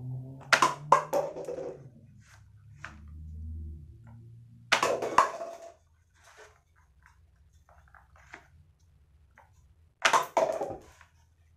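Cardboard toy pistol test-fired at a stack of paper cups: three bursts of clicks and clattering knocks, about five seconds apart, with light ticks between them.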